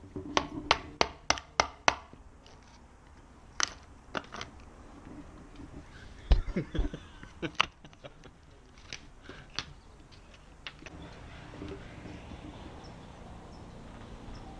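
Hammer tapping a tool held in a freshly cut hole in a stucco wall, six quick sharp taps about three a second at the start, then scattered knocks. Near the end, lighter ticks and scraping as a screwdriver picks at the hole's edge.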